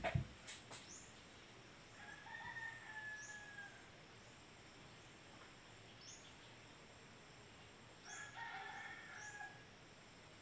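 A rooster crowing faintly twice, about two seconds in and again about eight seconds in, each crow about a second and a half long with a slightly falling pitch. A few knocks from the phone being handled at the start.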